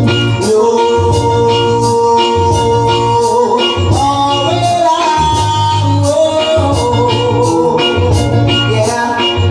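Reggae music: a bass line pulsing on a steady beat, with regular percussion strokes and long held melody notes over it.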